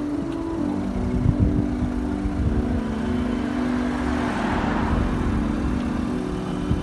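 Road traffic passing. One car passes close by about four seconds in, its tyre and engine noise swelling and then fading, over a steady low rumble.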